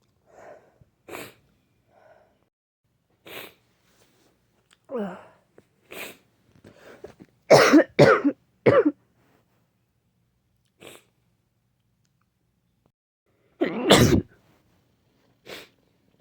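Sick sneezing and coughing in a string of short sudden bursts. A loud fit of three or four comes close together about eight seconds in, and another hard one about fourteen seconds in.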